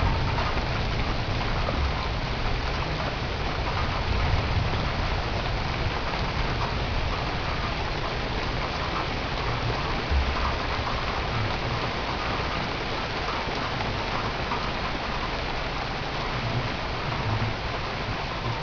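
Heavy rain from a thunderstorm, coming down hard in a steady, even downpour.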